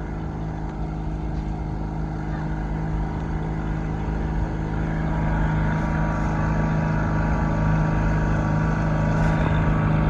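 25 hp Yamaha outboard motor on a small skiff running steadily underway, growing gradually louder.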